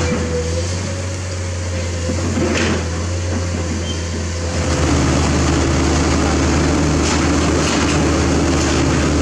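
Ready-mix concrete mixer truck's engine running steadily as concrete is discharged down the chute. Its pitch changes about five seconds in, when a new steady tone joins the drone.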